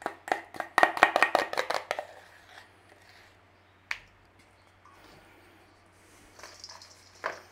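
A metal spoon knocking and scraping against stainless steel bowls: a quick run of about a dozen ringing clinks in the first two seconds as butter is knocked out of a small bowl into a large one, then a single clink. Near the end, a soft hiss of brown sugar poured into the mixing bowl, and one more clink.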